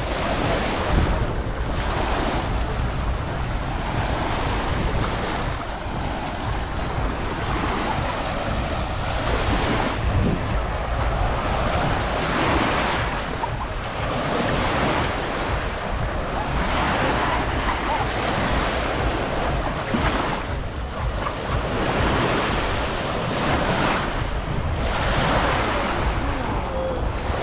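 Small sea waves breaking and washing up a sandy beach, swelling every few seconds, with wind buffeting the microphone as a low rumble.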